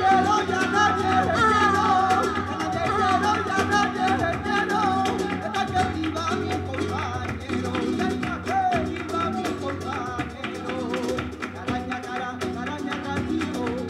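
Live flamenco guajira: a nylon-string flamenco guitar strumming and picking, with rhythmic hand-clapping (palmas) and percussion, and a voice singing through the first half.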